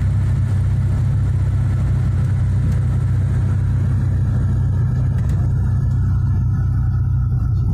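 A Mooney's piston engine and propeller running at low power, heard inside the cabin as a steady low drone during the landing rollout. The higher rushing noise fades over the second half as the plane slows.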